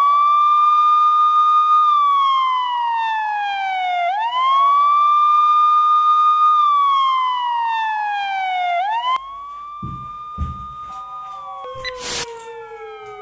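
Police siren wailing. Each cycle rises quickly, holds high for about two seconds, then slides slowly down, repeating about every four and a half seconds. About nine seconds in, the siren drops quieter and a few knocks and a sharp click join it.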